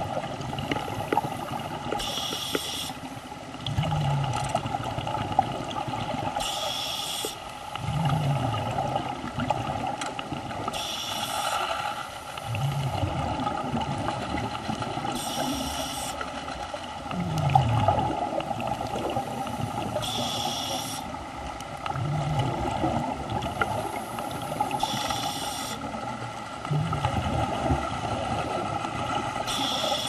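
Scuba diver breathing through a regulator underwater: a hissing inhale and a low, groaning burble of exhaled bubbles, repeating about every four to five seconds over a steady hum.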